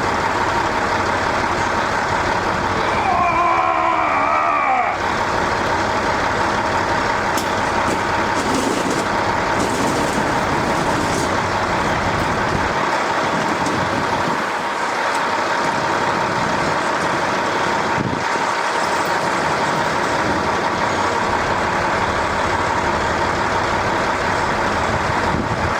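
Steady, loud rushing mechanical noise with a faint constant hum, like an engine or machine running nearby. A brief wavering tone comes about three seconds in.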